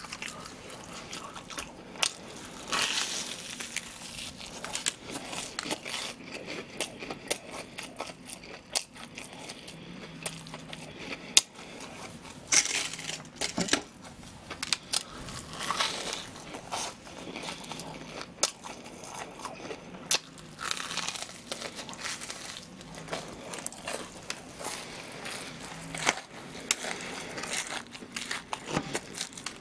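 Close-miked crunching and chewing of deep-fried breaded pork cutlet (donkatsu), the crisp fried crust crackling as it is bitten and chewed. The crunches come irregularly, with louder ones every few seconds.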